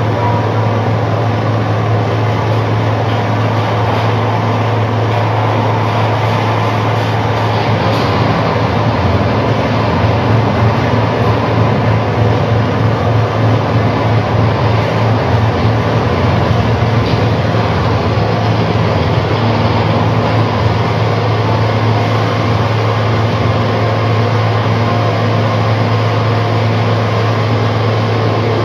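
Electric guitar played through an amplifier as a loud, steady noise drone: a dense wash of distorted sound over a strong low hum, swelling a little partway through.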